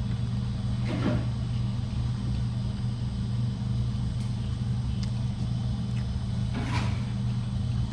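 A steady low hum running without change, with two brief faint sounds about a second in and near seven seconds.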